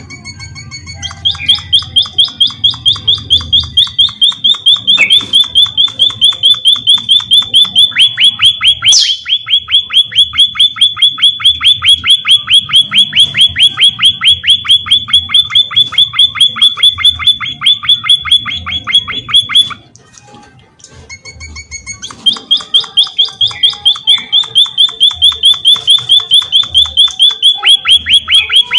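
Emprit (munia) calling: a fast, even run of high chirps, about five a second, that breaks off for about two seconds some twenty seconds in and then starts again.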